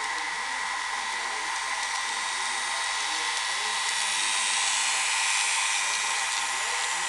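Model train running past: the locomotives' small electric motors whine steadily over the hiss of wheels on the track. The sound swells and turns brighter about four to five seconds in as the locomotives go by close.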